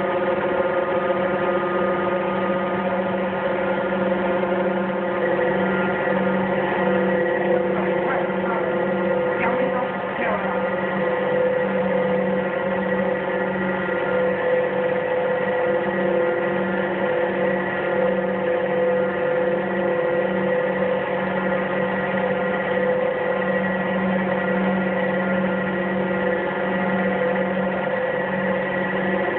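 Endless diamond wire saw running steadily as its wire cuts through an anvil: a constant machine hum with several held tones, with a brief wavering whine about a third of the way in.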